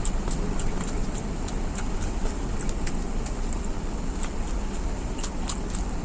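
Close-miked eating: chewing with many small, irregular mouth clicks, over a steady low background rumble.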